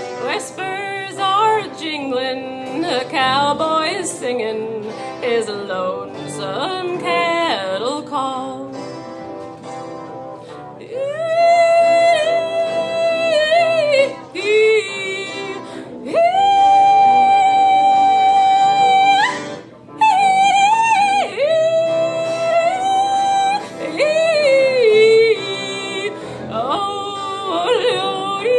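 A wordless female voice singing. In the first few seconds it makes quick, leaping, warbling runs of pitch. It drops quieter briefly, then holds long, steady high notes, broken by short, swooping phrases near the end.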